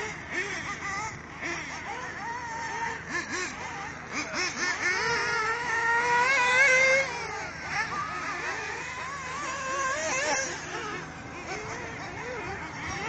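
Radio-controlled off-road buggies being driven around a dirt track, their small high-pitched motors revving up and down as they accelerate and brake. About four seconds in, one motor winds up in a long rising whine that is loudest near seven seconds, then cuts back.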